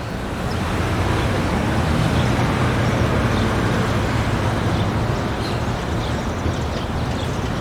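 City street traffic ambience: a steady low rumble of road traffic and engines, with faint short high chirps scattered through it.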